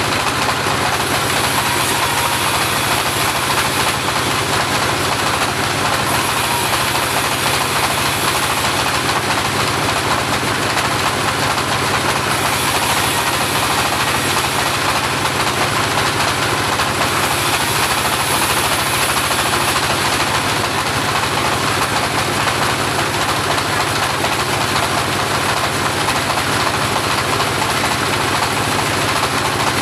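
Homemade portable bandsaw running steadily and loudly. A higher hiss comes and goes every few seconds over the steady running.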